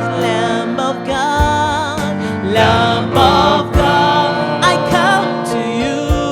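Live gospel worship music: a slow praise song sung with vibrato over sustained keyboard chords, with occasional drum hits.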